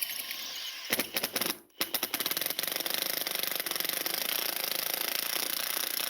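Impact wrench hammering rapidly on a nut, cutting out briefly just under two seconds in and then running steadily again. The bolt spins with the nut instead of the nut coming off.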